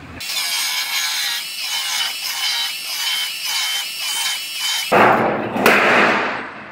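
Power saw cutting through the steel sheet metal of a pickup's bedside, a high wavering whine that pulses about twice a second with the cutting strokes. About five seconds in it gives way to a louder rushing hiss lasting about a second and a half.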